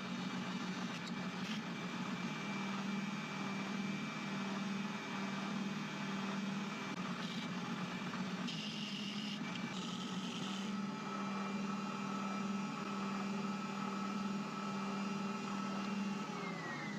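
Power tool spinning a 1-inch sanding drum, a steady motor hum with sanding noise as the ends of small wooden 2x4 offcut pieces are sanded to a curve. Near the end the motor is switched off and its pitch falls as it spins down.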